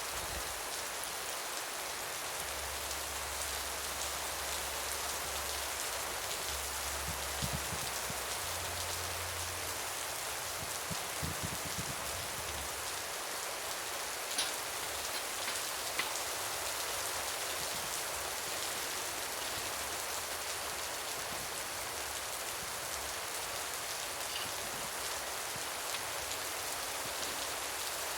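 Steady rain falling, with a few faint drip-like ticks about halfway through.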